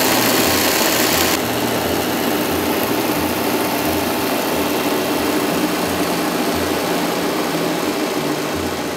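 Lux Tools bench grinder's electric motor running steadily, driving the sanding belt of a homemade belt sander over its roller with an even hiss. The belt runs free, without load.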